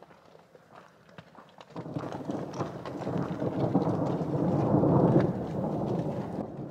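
A long rumble of thunder builds about two seconds in, swells for several seconds and fades near the end, over faint scattered ticks.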